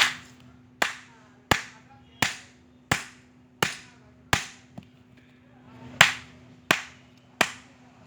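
Hammer blows on an old refrigerator compressor's steel shell, struck in a steady rhythm about once every 0.7 seconds, each a sharp strike with a short ring. There is a brief pause just past halfway before the blows resume.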